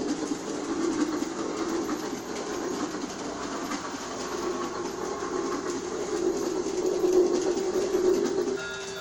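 G-scale toy steam train set running on its track: a steady rushing rumble with faint clicking from the wheels.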